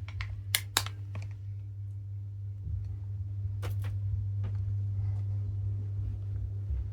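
Westinghouse Vegas ceiling fan motor running steadily on high speed in reverse, giving a low, slightly growly hum. A few sharp clicks come near the start and one about halfway through.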